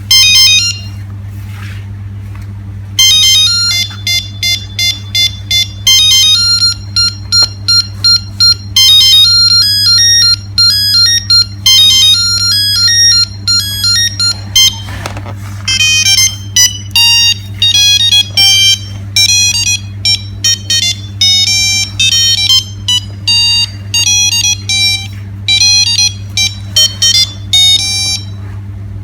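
A Nokia 3610 mobile phone plays a ringtone through its small loudspeaker: a quick melody of short, bright beeping notes, one at a time. A single note sounds at the start, then after a pause of about three seconds the tune runs on until just before the end, over a steady low hum.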